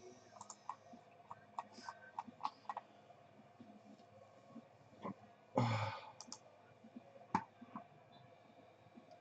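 A run of small, sharp clicks and taps as a sealed trading-card box is handled and opened, with a brief louder rustle about halfway through.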